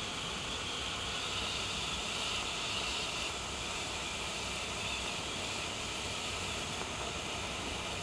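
Klasek RDG60ZL yellow smoke grenade burning, a steady hiss as the smoke pours out, a little stronger about two to three seconds in.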